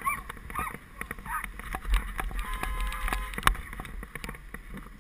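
Wind buffeting the microphone of a camera on a moving bicycle, with scattered clicks and rattles from the bike as it rides over the road.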